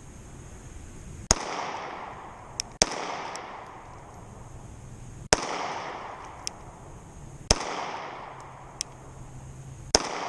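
Springfield Armory XDS 3.3 9mm pistol firing five single shots at an unhurried pace, about one to two and a half seconds apart, each followed by a fading echo. Fainter, sharper cracks fall between the shots.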